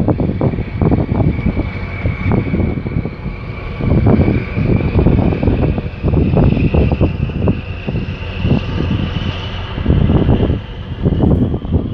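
Wind buffeting the microphone in uneven gusts. Under it runs a thin, steady high whine that slowly rises in pitch.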